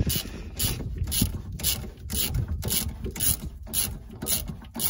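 Hand socket ratchet tightening a brake caliper slider pin bolt: short bursts of ratchet clicking, about two a second, as the handle is swung back and forth.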